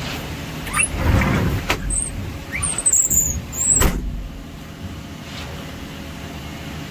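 A large engine running steadily, with several brief, high, rising metallic squeals and two sharp knocks in the first four seconds.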